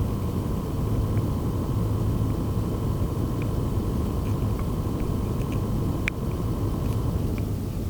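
Phanteks PH-F140XP 140 mm fan running with a steady low hum and a faint high whine, with a few light ticks, one plainer about six seconds in. This is the noise that the fan's owner treats as a fault.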